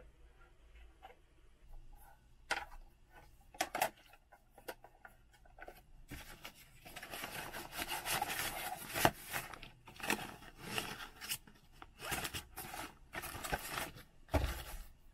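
A nylon pouch rustling and crinkling as two plastic ballet turnout discs are handled and slid into it, with scattered sharp clicks and knocks of plastic. The handling is sparse at first and becomes a dense run of rustling from about six seconds in.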